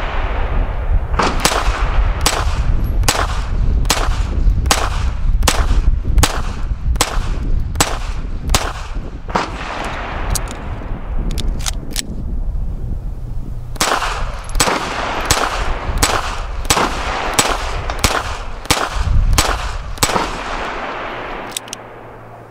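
Smith & Wesson Model 2206 .22 LR semi-automatic pistol firing steady rapid shots, about two a second. The shots come in two long strings, with a pause of about two seconds near the middle.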